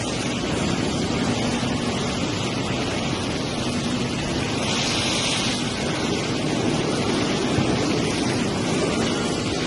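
Four-roll CNC plate rolling machine running, a steady mechanical hum under a hiss, with a brief louder hiss about five seconds in.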